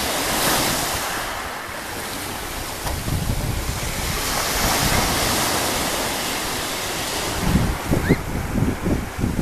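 Sea waves washing onto the shore, the hiss of the surf swelling and ebbing. Wind buffets the microphone in gusts near the end.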